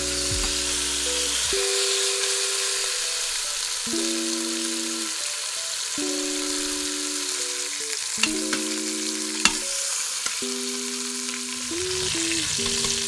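Beef short ribs sizzling steadily as they sear in hot oil in an Instant Pot's stainless steel inner pot, with soft background music and a couple of sharp clicks partway through.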